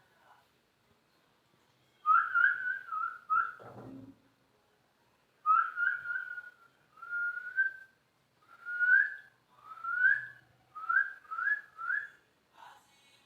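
A series of short, clear whistled notes in two groups with a pause between them, many of them gliding upward at the end.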